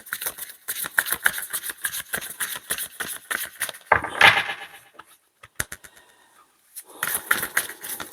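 Deck of tarot cards being shuffled by hand: a fast run of papery clicks and rustling, a louder flurry about four seconds in, a near-quiet pause with a few light clicks, then more shuffling near the end.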